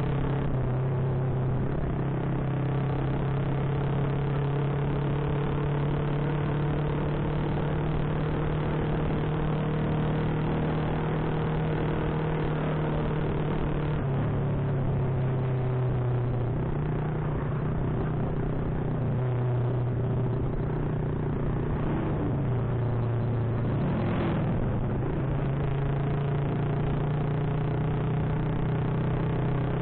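Honda Supra single-cylinder four-stroke motorcycle engine running while being ridden, with road and wind noise. The engine's pitch holds steady at first, then drops and picks up again several times through the second half as the rider eases off and opens the throttle.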